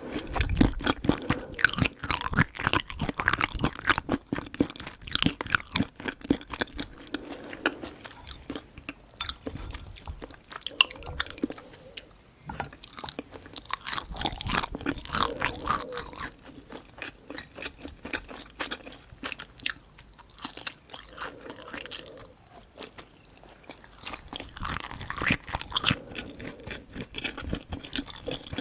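Close-miked eating sounds: steady chewing with many small crunchy, crackling bites, coming in bursts with short quieter pauses between mouthfuls.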